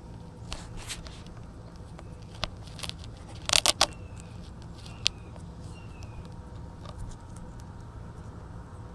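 Scattered clicks and knocks of the recording phone being handled and fitted against a plastic remote-control buggy, with a quick cluster of loud knocks about three and a half seconds in and a single sharp one a little later, over a steady low hum.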